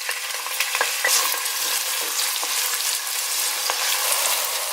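Diced onion frying in hot vegetable oil in a large pot: a steady, loud sizzle with a few light clicks through it.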